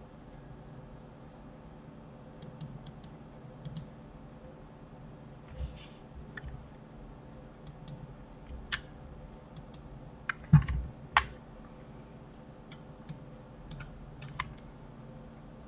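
Computer keyboard keys and mouse buttons clicking in scattered single taps and short runs, with a louder pair of knocks about ten and a half seconds in, over a faint steady hum.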